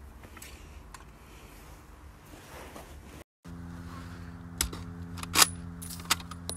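Faint handling noise, then a steady low hum with several sharp clicks, the loudest about five seconds in.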